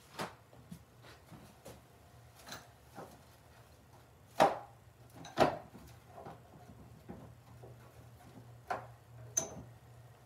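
Scattered knocks, clatter and rustling of parts being handled while someone searches for the cam base gasket, with two louder knocks about four and five seconds in and a couple of sharper clicks near the end, over a faint low hum.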